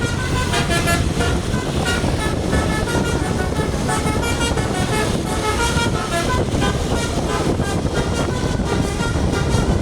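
Telolet basuri horn on a tour bus playing a continuous run of short, quickly changing notes, with the bus's engine and road noise underneath.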